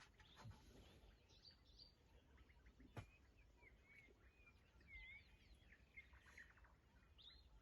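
Faint bird chirps and short whistles, scattered and overlapping, over a quiet background, with one sharp click about three seconds in.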